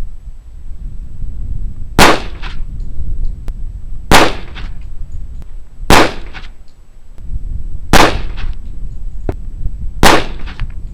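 Five .45 ACP pistol shots from a full-size Springfield Armory 1911, fired at a steady pace about two seconds apart, each a sharp crack with a short echo.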